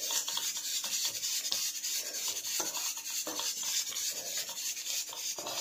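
Hands kneading a soft semolina-and-yeast dough in a stainless steel bowl: irregular repeated strokes of hand and dough rubbing against the metal.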